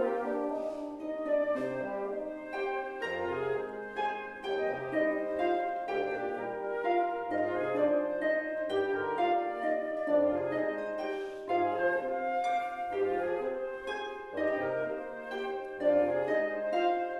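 Flute, bassoon and harp trio playing classical chamber music live. Rapid plucked harp notes run under held melodic lines from the flute and bassoon.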